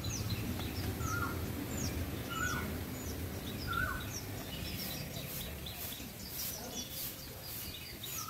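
Birds calling: one short falling call repeats about every second and a half, among many small high chirps, over a steady low rumble of outdoor background noise.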